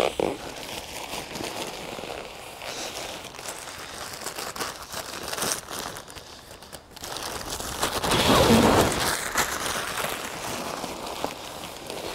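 Nylon pump sack and sleeping-pad fabric crinkling and rustling as the sack is pressed down to push air into a Sea to Summit Ether Light XT Extreme pad and lifted open to refill, with a louder stretch about eight seconds in.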